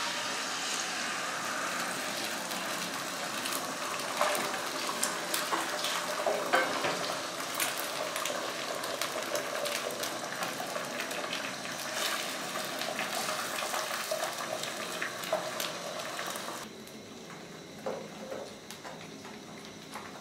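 Beaten eggs sizzling as they fry in a hot frying pan, with the spatula scraping and tapping against the pan now and then. The sizzle cuts off suddenly near the end.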